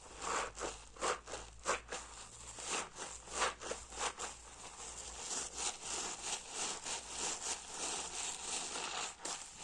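A hard sponge full of soapy foam being squeezed and worked in quick repeated strokes, separate squeezes at first, then denser and steadier in the second half.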